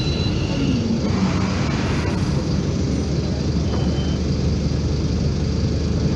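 Steady road traffic, with an engine note falling in pitch as a vehicle passes in the first second or two.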